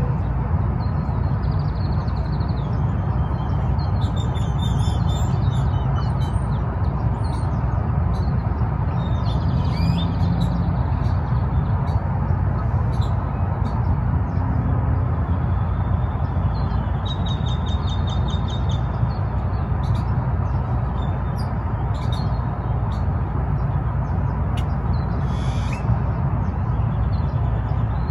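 Wild birds calling and chirping at dawn, with a few quick pulsed trills, over a steady low rumble.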